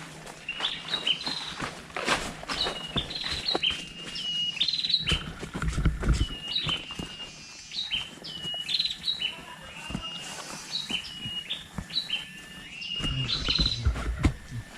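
A forest bird calling over and over in short, high, hooked whistled phrases, several a second, with scattered knocks and rustles underneath.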